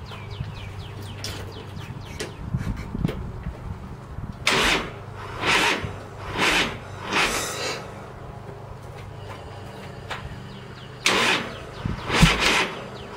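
Starter slowly cranking a 100-cubic-inch S&S V-twin in two bouts, the engine labouring over each compression about once a second without catching. The AGM battery is too weak to spin the engine fast enough for a cold start.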